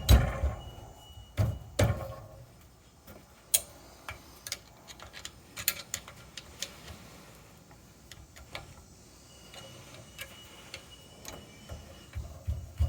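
Metal parts of an outdoor hydrant's handle linkage clicking and knocking as they are fitted together by hand: a few heavier knocks in the first two seconds, then scattered light clicks and taps.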